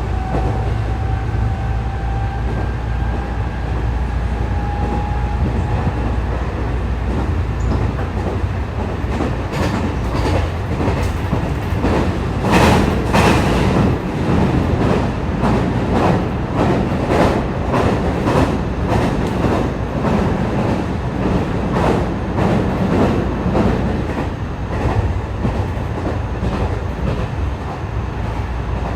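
JR West 207 series electric train running, heard from inside the car. A thin motor whine rises slowly over the first few seconds as it accelerates. It then gives way to a rhythmic clickety-clack of wheels over rail joints, loudest about halfway. The uploader notes that this car's inverters at its two ends are out of step, which gives its acceleration sound an unusual tone.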